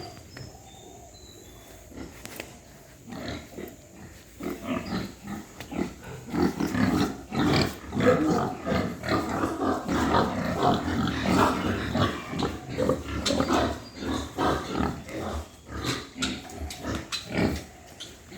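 Pigs grunting, many short grunts close together, starting a few seconds in and thinning out near the end.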